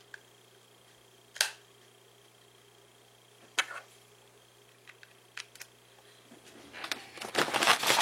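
Hands handling a small electronic device and its cable on a desk: a few separate sharp plastic clicks, then a busier run of clicking and rustling near the end.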